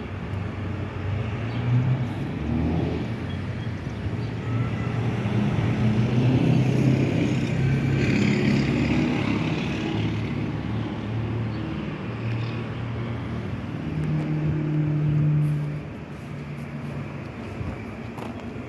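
Road traffic: cars passing on the street, engine hum and tyre noise swelling to a peak about nine seconds in and then fading, with another engine tone that drops away a few seconds before the end.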